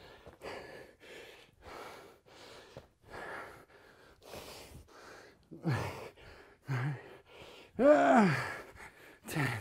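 A man breathing hard through heavy exertion, in quick, even breaths about two a second, with a few loud strained groans of effort near the end.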